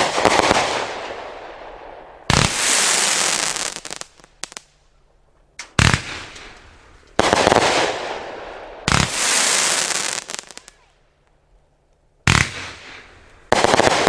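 A 500-gram, 36-shot fan cake of 1-inch tubes firing about seven shots at uneven one-to-three-second gaps. Each shot is a sudden bang followed by a long fizzing crackle that dies away, from crackling comets and glittering willow breaks.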